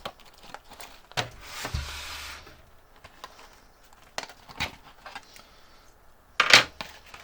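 A PC case's accessory pack being handled and opened: scattered knocks and taps, a rustle of packaging about a second and a half in, and a louder knock near the end.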